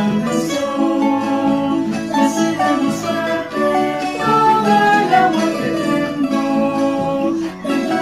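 Music performed by a student ensemble, with plucked string instruments prominent and a melody of held notes that keeps moving.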